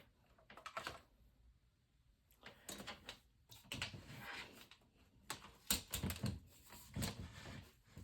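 Scattered light knocks, clicks and rubbing of a plastic box fan being handled and turned around.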